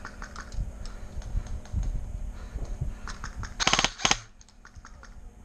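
Airsoft gun firing two short, rapid full-auto bursts about three and a half seconds in, a fast string of sharp clicks. Scattered faint clicks of other shots and BB hits are heard around them.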